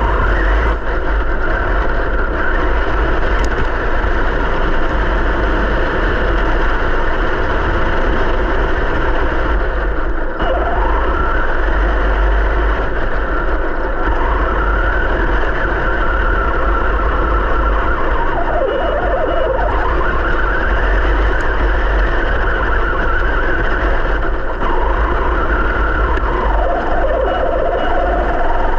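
Traxxas TRX4 Sport RC crawler's electric motor and gear transmission whining, the pitch rising and falling several times as the throttle changes, over a steady low rumble of the body-mounted camera shaking over the ground.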